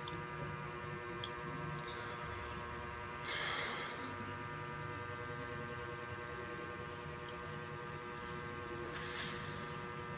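Steady low electrical hum with two short breathy swishes, about six seconds apart, as a man sips through a straw from a mug.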